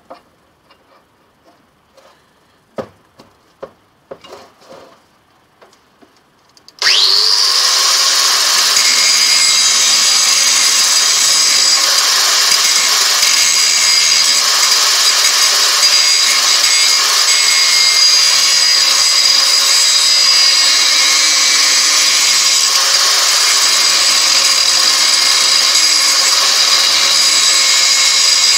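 A few light knocks and clicks as a file piece is clamped in a steel bench vise. About seven seconds in, an angle grinder starts with a quick rising whine and then runs steadily, grinding into the high-carbon steel of an old metalworking file.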